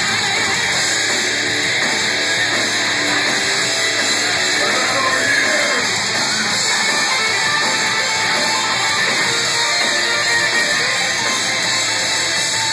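Live metalcore band playing loud, steady music, led by electric guitars.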